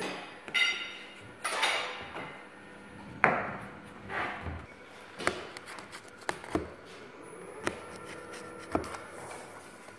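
Knife cutting through a tray of rolled baklava. The cuts come as a series of sharp knocks, roughly once a second and unevenly spaced, as the blade strikes the bottom of the aluminium pan; a few strokes leave a short rasp of the blade through the pastry.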